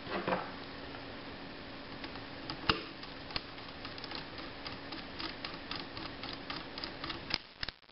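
Hex screwdriver driving socket head cap screws into the steel top cover of an AK charging-system gas tube. There is one sharp metal click about two and a half seconds in, then a run of light ticks, roughly three or four a second, as the screws are turned down.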